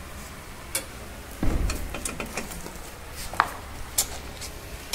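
Hand tool clicking and tapping on metal under the car, a few separate clicks. The loudest is a dull thump about a second and a half in, and a short metallic ping comes a little after three seconds.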